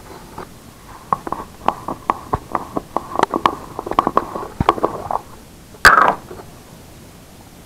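Plastic jars and lids being handled: a run of light plastic clicks and rattles, then one louder clatter near the end as a lid is set down on a wooden table.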